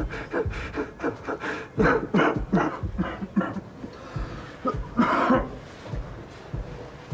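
A person breathing hard in ragged, gasping breaths, about two a second, with a louder gasp about five seconds in, then easing off.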